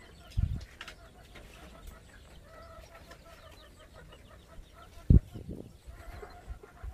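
Chickens clucking faintly, with two dull low thumps, one about half a second in and a louder one about five seconds in.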